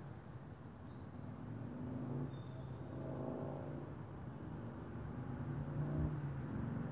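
A motor vehicle's engine passes by: a steady low hum that swells for a few seconds near the middle and then fades, with a few faint high bird chirps.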